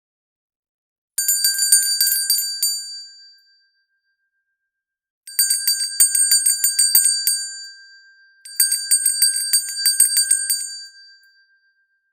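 Hand bell shaken in three bursts, its clapper striking rapidly against the bell: a short first burst, then two longer ones close together, each dying away as the ringing fades.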